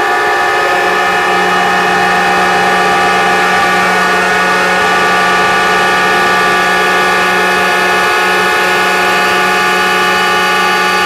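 Whistles and horns of many ride-on miniature locomotives, steam and diesel, all blowing together in one long, loud, steady chord, with a lower horn joining about a second in.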